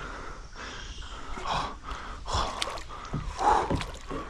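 A person breathing hard, with short gasps and grunts.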